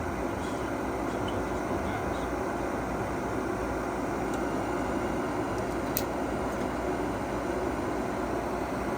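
Gas furnace's draft inducer motor running with a steady whirring hum during a call for heat, with no pressure-switch click yet, and one short sharp tick about six seconds in.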